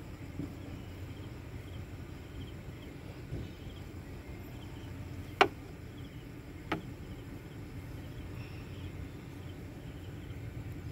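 Two sharp clicks about a second apart, the first louder, from hands and a tool working at the terminal connectors of a window air conditioner's compressor. Under them runs a steady low hum with faint, regular high chirping.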